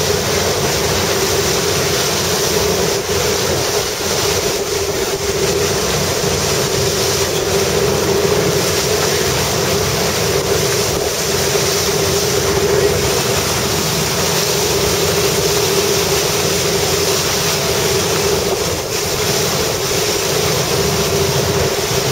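Fishing boat under way, its engine running with a steady drone, mixed with the rush of water along the hull and wind buffeting the microphone.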